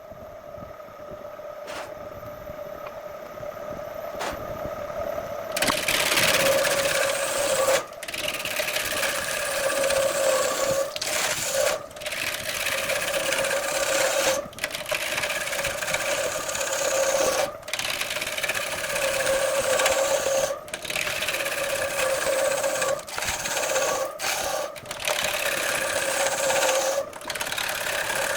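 An electric power tool working wood: a steady motor hum, joined about six seconds in by a loud scraping, rasping hiss of the wood being cut or sanded. The hiss drops out briefly every second or few.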